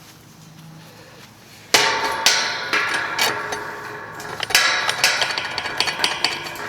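A hammer striking metal about a dozen times at an uneven pace, starting suddenly about two seconds in, each blow ringing on.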